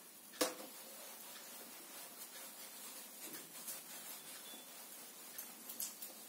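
Whiteboard duster wiping marker off a whiteboard: a faint rubbing with small scuffs, after a single sharp knock about half a second in.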